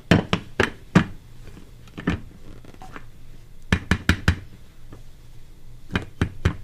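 Hands in pot holders knocking on an upturned metal ring mold sitting on a platter, in quick runs of three or four sharp knocks, to loosen the baked noodle-and-custard ring so it drops out.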